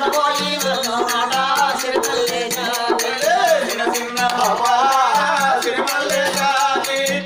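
Oggu katha folk singing: voices singing a melody over a fast, steady beat of jingling, clashing metal percussion.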